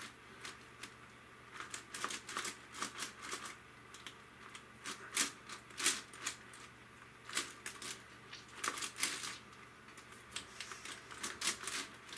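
Layers of a magnetic Yuxin Huanglong 17x17 cube being turned by hand: irregular plastic clicks and clacks in quick clusters with short pauses between them.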